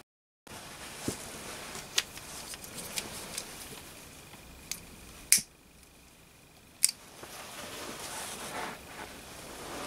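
A blue disposable lighter being struck to light the methylated-spirits wick of a model steam engine's burner: scattered sharp clicks, the two loudest a second and a half apart past the middle.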